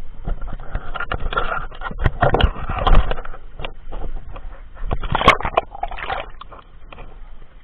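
Water splashing and bubbling against a camera held at the sea surface while snorkeling, with sharp knocks and scrapes from the hand on the camera. It comes in irregular bursts, loudest about two to three seconds in and again about five seconds in.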